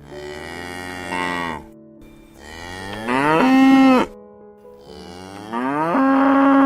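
A cow mooing three times. Each moo is about a second and a half long, rising in pitch and then holding, with the last two louder than the first. Soft background music plays underneath.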